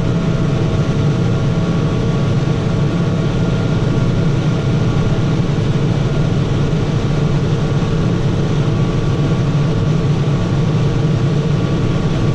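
Tractor engine running steadily under load while pulling a vertical tillage implement across a field.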